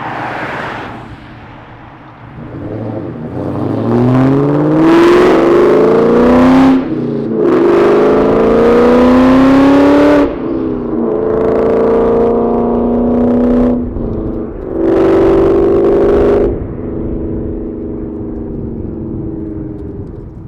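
Supercharged V8 of a 2003 Ford SVT Cobra revving up hard through the gears with its aftermarket exhaust: the pitch climbs, drops at two upshifts, holds through two more pulls, then eases off near the end.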